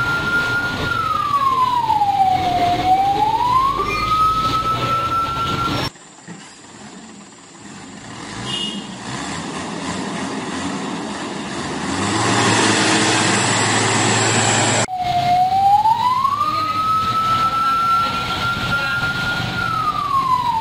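Wailing police escort siren: one tone that holds high, slides down over about two seconds and climbs back up, over the road noise of passing heavy trucks. About six seconds in it cuts off for a logo sound effect, a swelling whoosh with a low hum, and the siren returns about fifteen seconds in.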